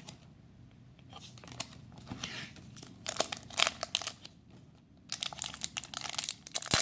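Foil wrapper of a Yu-Gi-Oh booster pack crinkling and being torn open, a run of sharp crackles starting about halfway through, with a sharp click near the end.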